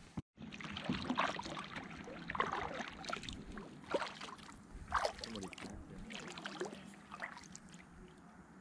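Kayak paddle strokes: the blades dip and pull through calm water with splashing and dripping, a stroke about every second.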